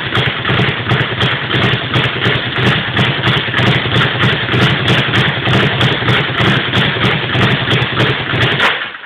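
Speed bag being punched in a fast, continuous rhythm, the leather bag rattling against its wooden rebound platform; it is loud and stops abruptly near the end.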